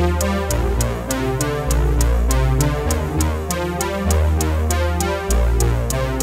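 Electronic background music with a steady quick beat and a deep bass line.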